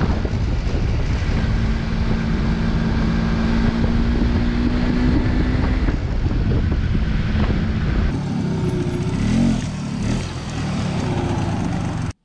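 1988 MZ ETZ 250's single-cylinder two-stroke engine running under way, heard from the rider's helmet over wind and road noise. The engine note holds fairly steady, then shifts up and down as the revs change in the second half.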